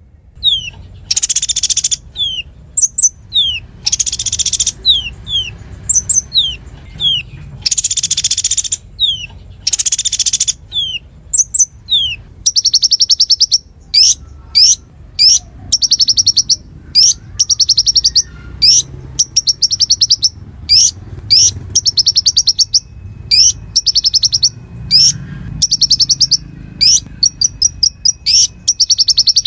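Konin (kolibri ninja sunbird) in full, rapid-fire song. For the first dozen seconds harsh, scratchy bursts alternate with sharp falling whistles; then it switches to long strings of fast, high trills, one after another.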